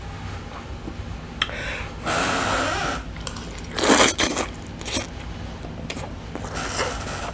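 A person slurping forkfuls of 2x spicy instant noodles in several bursts: a longer slurp about two seconds in, the loudest one about four seconds in, and shorter ones after.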